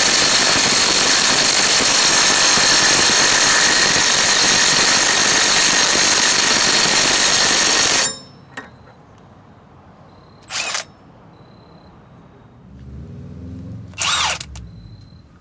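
Impact wrench running steadily on the front axle nut of a Jeep Grand Cherokee ZJ, cutting off suddenly about eight seconds in, followed later by two short bursts.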